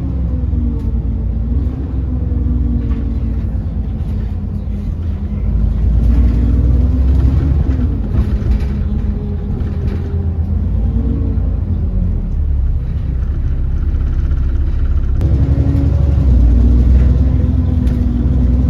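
Alexander Dennis Enviro400 double-decker bus heard from on board while under way: a heavy low rumble with whining engine and drivetrain tones that rise and fall as it speeds up and slows. This bus is known among enthusiasts as a "Hoover" for its vacuum-cleaner-like whine.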